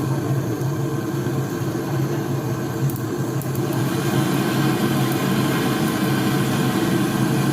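A small motor running with a steady, unchanging low hum.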